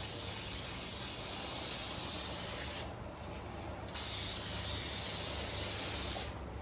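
Aerosol cooking spray hissing as a cake pan is greased: a long spray that cuts off a little under three seconds in, then a second spray of about two seconds.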